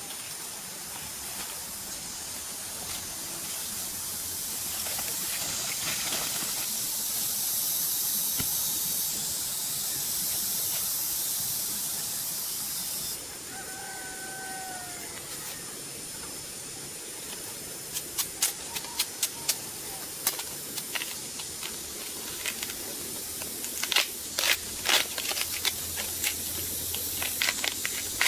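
A steady high hiss that cuts off suddenly about halfway through. Then a short gliding call, followed by a run of sharp clicks and snaps in the last third.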